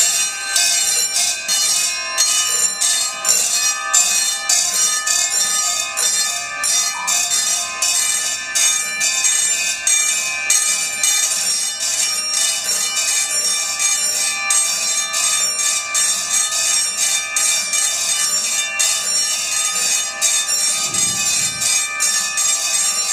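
Loud experimental live music: a dense, bell-like metallic ringing made of rapid repeated strikes, about three a second, over sustained high ringing tones.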